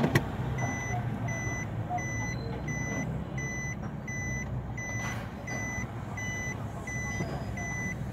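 Reverse-gear warning beeper of a Suzuki Swift sounding a short high beep about every 0.7 s, over the engine idling steadily with no misfire after a faulty ignition coil was replaced. A sharp click comes right at the start, as the gear selector is moved.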